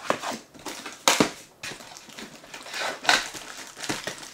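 Cardboard packaging being handled: an inner carton scraped out of its sleeve and its flaps pulled open, with rustling and a few sharp cardboard knocks, the loudest about a second in and another about three seconds in. Plastic wrapping crinkles near the end.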